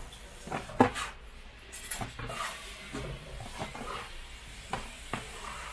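Plastic food trays knocking and clicking as they are handled and set down on a wooden work table, with a soft rustle of dumpling wrappers being stacked. A sharp knock about a second in is the loudest.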